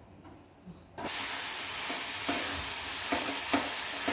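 Chopped onions sizzling as they sauté in a steel pan, starting abruptly about a second in, with a metal spoon knocking and scraping against the pan several times as they are stirred.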